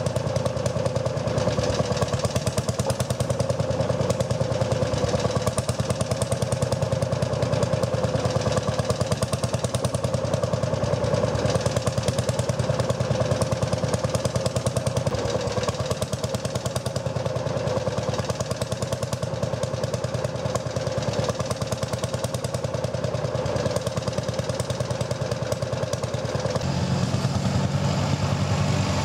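Lanz Bulldog tractor's single-cylinder two-stroke hot-bulb engine idling with a rapid, even thumping. Near the end the sound changes to another tractor engine running, smoother and lower.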